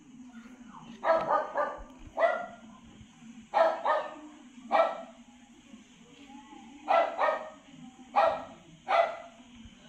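A dog barking repeatedly, about eleven sharp barks in irregular groups of one to three, over a low steady hum.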